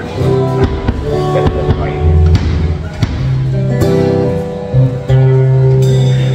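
Acoustic guitars playing live, strummed chords with ringing low notes.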